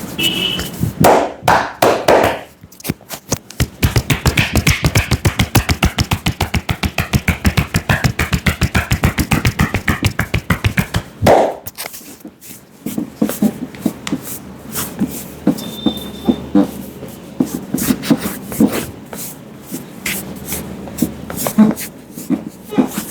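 Indian head massage strokes: hands tapping and slapping on a head in a fast, even rhythm of about six strikes a second for several seconds, then slower, irregular slaps and pats.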